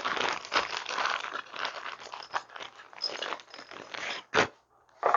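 Crinkling, rustling handling noise as small model-locomotive parts are picked up and sorted, with one sharp click a little over four seconds in.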